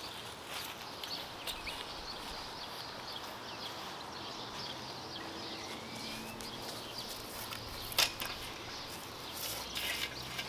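Backyard ambience with small birds chirping, one sharp click about eight seconds in, and footsteps and rustling in the grass near the end.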